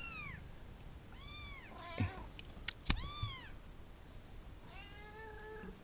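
Domestic cats meowing: three or four separate high meows, each rising and falling in pitch, the last one longer and flatter. A few sharp knocks or clicks come between about two and three seconds in.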